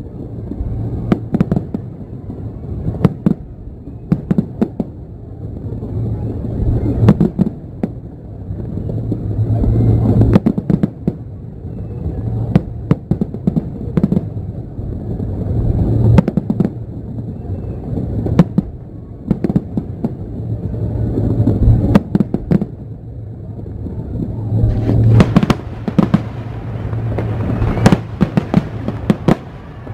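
Aerial fireworks shells bursting in a continuous barrage, with sharp bangs coming every second or so over a steady low rumble. The bangs grow denser near the end.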